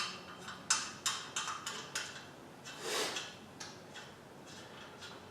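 Light clicks and taps of metal parts being handled while a motorcycle lift is assembled by hand, thickest in the first two seconds, with a brief scrape about three seconds in.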